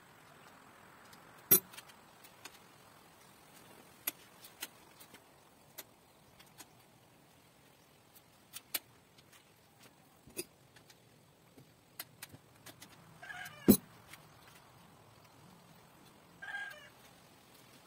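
Scattered clicks and knocks of BMX bike parts and tools being handled during hand assembly, with a sharp knock about a second and a half in and the loudest one about 14 seconds in. A cat meows twice in the second half.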